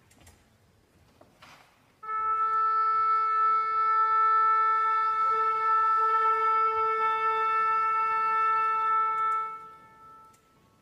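Near silence, then about two seconds in a single wind instrument sounds one long steady note, held for about seven seconds before it fades away.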